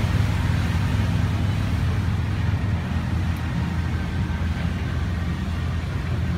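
Cargo riverboat's engine droning steadily: a constant low hum with an even rush of noise above it.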